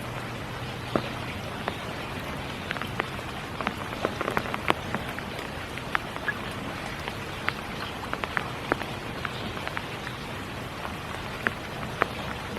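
Spring rain falling steadily: an even hiss with many sharp individual drops striking nearby surfaces at irregular intervals, thickest about four to five seconds in.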